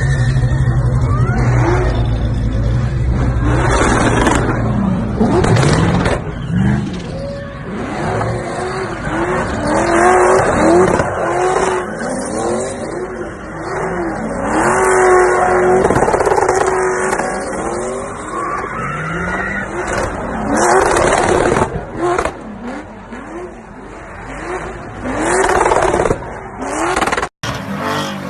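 Ford Mustang engine revving up and down again and again while its tyres squeal and skid through donuts and burnouts.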